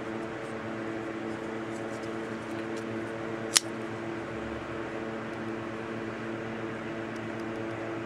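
One sharp click about three and a half seconds in: the Spyderco Persistence folding knife's blade snapping open and its liner lock engaging. A steady hum sounds throughout.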